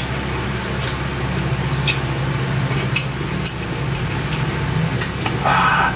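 Two people eating with their hands, chewing with wet mouth clicks and smacks scattered through, and a louder brief noisy sound near the end. A steady low hum runs underneath.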